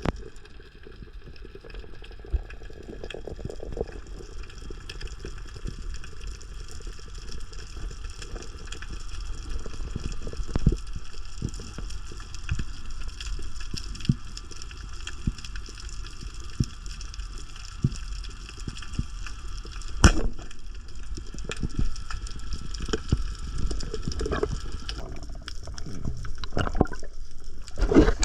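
Water gurgling and sloshing over a steady bed of noise, with many scattered short clicks and knocks, one louder knock about two-thirds of the way through.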